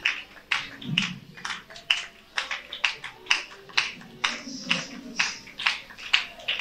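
Rhythmic hand clapping by a group, about two claps a second, with faint voices underneath.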